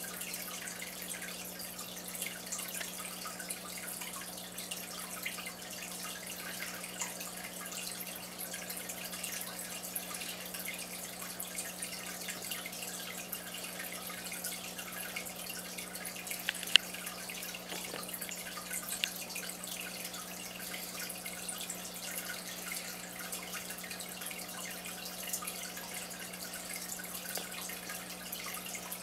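Saltwater aquarium's filter running: water steadily trickling and dripping over a constant low motor hum. A single sharp click sounds a little past halfway through.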